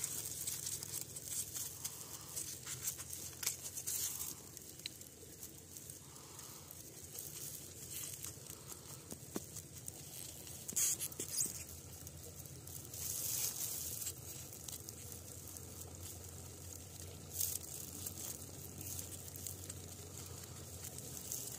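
Faint crinkling and rustling of a block of thermocol foam squeezed and worked by fingers against a PVC pipe, as the glue on it softens and melts the foam into a patch over a leak. A few louder crackles are scattered through it.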